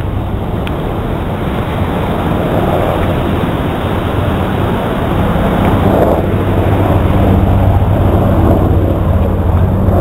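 Wind rumbling on the microphone over the wash of water, with a low steady hum that grows stronger about halfway through.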